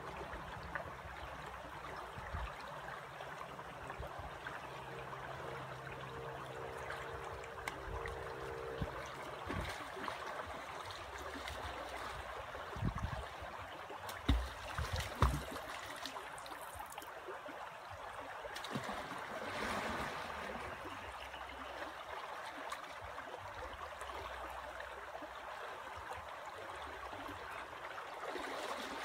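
A shallow river flowing steadily over stones, with a faint steady hum in the first third. About halfway through come a few sharp knocks and splashes as river rocks are handled and set down in the water.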